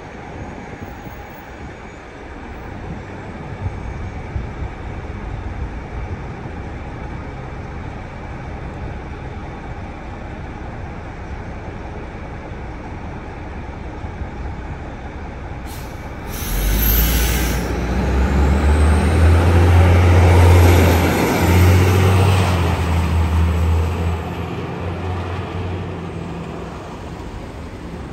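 MCI D-series commuter coach idling at the curb. About two-thirds of the way in there is a short hiss of air as its brakes release, and then its diesel engine runs up loudly as the coach pulls away, with a break in the engine note partway through, before fading.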